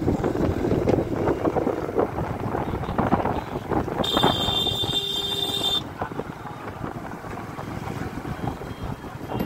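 Wind buffeting the microphone over the running of a moving motorbike, louder for the first several seconds and then easing. About four seconds in, a steady high tone sounds for just under two seconds.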